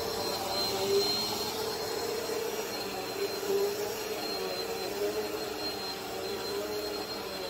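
Bagless upright vacuum cleaner running steadily as it is pushed over a wool rug: a continuous motor hum that wavers slightly, with a thin high whine on top.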